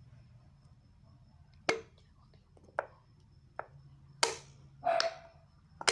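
Sharp knocks and clicks from a plastic shampoo bottle being handled over a cup while shampoo is poured out, about six irregular taps starting nearly two seconds in.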